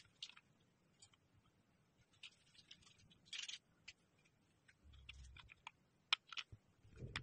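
Faint, scattered plastic clicks and taps from a Logitech M221 wireless mouse being handled, turned over and having its battery cover taken off, with two sharper clicks about six seconds in.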